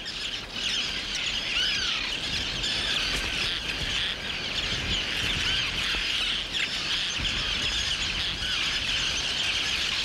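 Tern colony calling: many terns at once, a dense, steady chatter of overlapping short calls and chirps with no pause.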